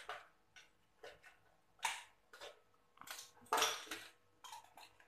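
A string of short scraping and crunching noises: a metal spoon scraping the plate as sambal belacan is scooped onto raw green mango, then crisp bites of the mango, the loudest about three and a half seconds in.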